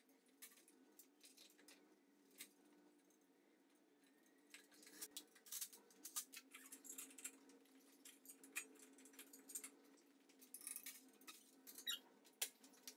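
Near silence broken by faint, scattered clinks, ticks and small squeaks of engine-hoist chains and metal being handled, over a faint steady hum; the sharpest clicks come near the end.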